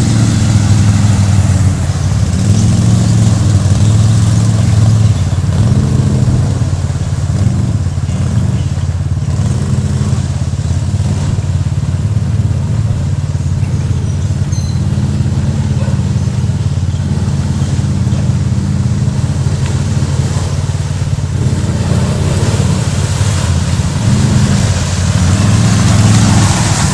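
Can-Am 800R XMR ATV's V-twin engine running steadily, its pitch rising and falling a little with light throttle.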